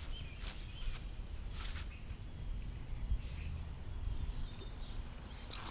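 Outdoor background with a steady low rumble and three short rustling noises, one about half a second in, one near the two-second mark and one just before the end.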